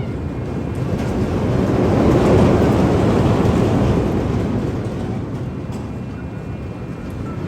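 Roller coaster train rumbling along its track, swelling about two seconds in and easing off near the end.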